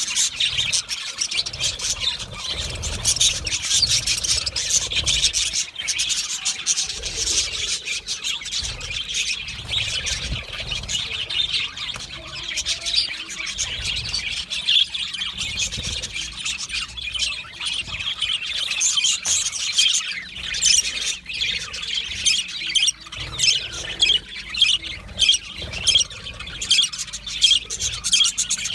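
Budgerigars chattering: a continuous jumble of chirps, warbles and harsh squawks, several birds calling at once.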